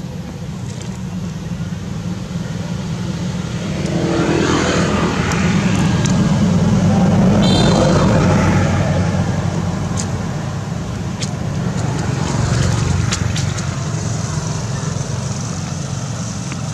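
A motor vehicle's engine running, a steady low rumble that grows louder about four seconds in and eases off toward the end, like a vehicle passing close by.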